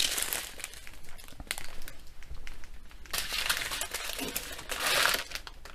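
Small plastic bags of diamond painting drills crinkling as they are handled and pushed aside, with light clicks and two louder rustles about three and five seconds in.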